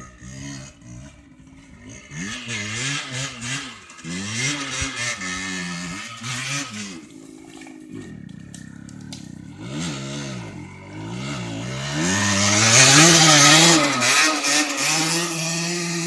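Rieju RR 50 enduro bike's 50cc two-stroke engine revving up and down over and over as it is ridden over rough ground, loudest about three-quarters of the way through as it comes close, then holding a steady note near the end.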